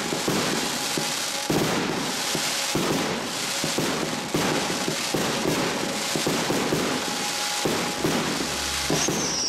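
TXB401 Blizzard Triplex firework cake firing continuously, with rapid overlapping shots and crackling bursts. A falling whistle starts near the end.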